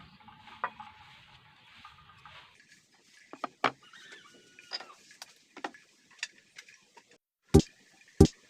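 Scattered faint clicks and light taps, then two sharp knocks about a second apart near the end.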